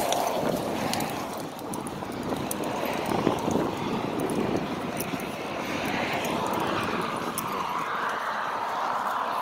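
Steady road noise of cars passing on the road alongside, swelling and fading about six seconds in, over the continuous rolling noise of a horse-drawn training cart moving across grass.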